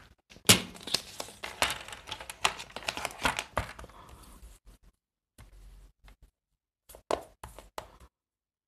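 Paper being torn by hand into collage pieces: a run of short crackling rips for the first few seconds, thinning out, then a few brief paper-handling clicks near the end.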